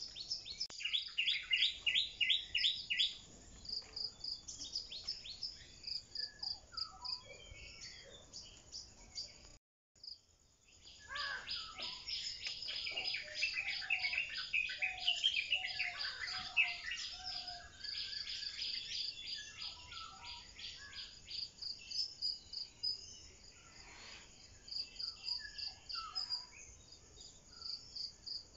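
Birds chirping in rapid repeated series over a steady, high-pitched insect trill like crickets. The sound cuts out completely for a moment about ten seconds in.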